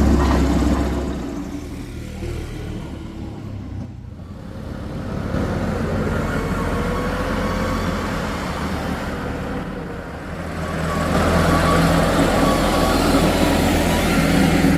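Heavy diesel engine of construction machinery running under load, easing off for a few seconds and then working harder again near the end.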